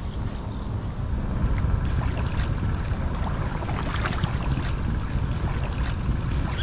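Water lapping, then from about two seconds in, a double-bladed paddle splashes in steady strokes beside an inflatable kayak. The splashes come as short, sharp drips and plops. A low wind rumble on the microphone runs underneath.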